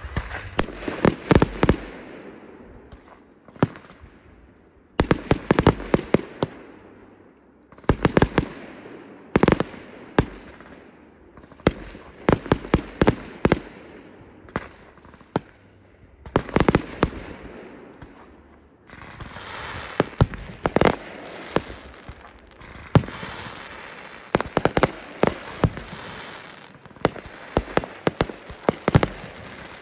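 Fireworks display: aerial shells bursting in quick clusters of sharp bangs every two to three seconds. From about two-thirds of the way in, a dense crackling hiss runs on under the bangs.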